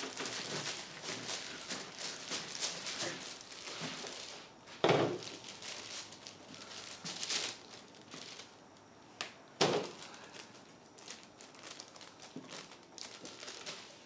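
Katana blade sawing and scraping through the rubber of a small pneumatic cart tire, then the cut rubber being pulled and torn apart by hand, a dry crinkling, crackling noise. Two sharp knocks stand out, about five and nine and a half seconds in.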